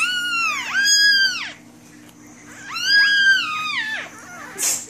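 Newborn French bulldog puppies crying: high-pitched calls that rise and fall in pitch, two back to back at the start and two more about three seconds in.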